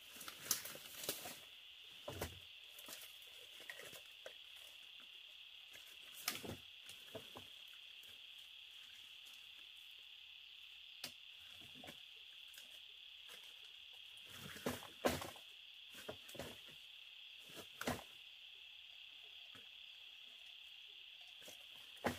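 A steady, high-pitched insect chorus, with irregular sharp knocks and clatters over it, the loudest about half a second in and again about fifteen seconds in.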